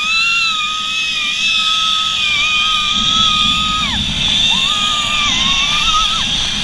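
A girl screaming on a zip line: one long, high scream that falls away about four seconds in, then a second shorter scream, over a steady rushing hiss.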